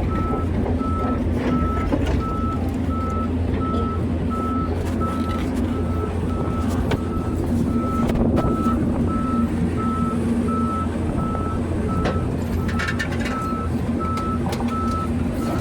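Heavy diesel machinery, a Caterpillar 350 excavator at work, running steadily under a backup alarm that beeps at one even pitch about once a second. A short run of metallic clanks comes about thirteen seconds in.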